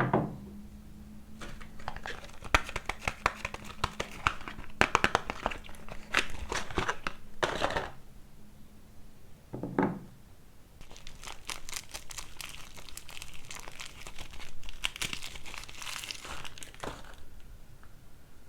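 Wrapper of a bar of soap crinkling and tearing as it is unwrapped by hand, in two spells with a single dull thump about ten seconds in.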